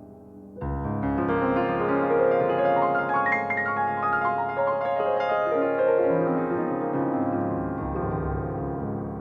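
Slow piano music, a fuller passage of sustained notes coming in about half a second in.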